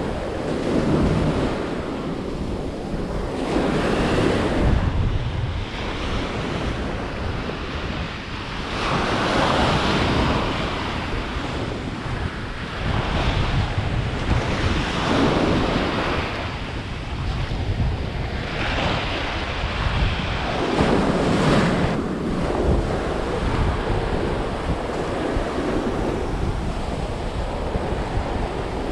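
Small ocean waves breaking and washing up the sand in foam, the hiss of surf swelling and fading every five seconds or so. Wind buffets the microphone with a low rumble underneath.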